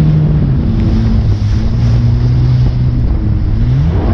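Yamaha GP1800 jet ski's four-stroke engine running under way, with wind rushing over the microphone and water noise. The engine note drops slightly about half a second in and climbs near the end as the throttle opens.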